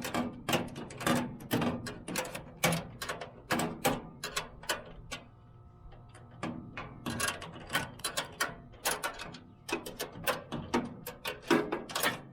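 Socket ratchet wrench clicking in quick runs of strokes as a bolt is worked, with short pauses between runs.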